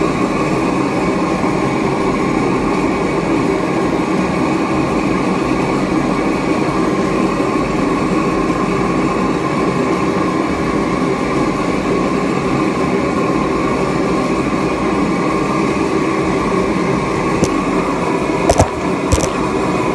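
Homemade furnace firing for a metal melt, giving a loud, steady rushing noise that does not change. A few sharp clicks sound near the end.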